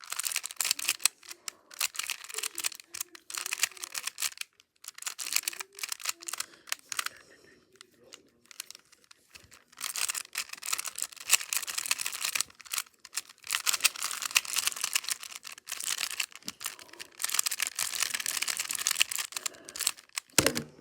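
Plastic 3x3 Rubik's cube being turned rapidly in a speed solve: long runs of quick clicking, rattling layer turns broken by short pauses. A low thump near the end.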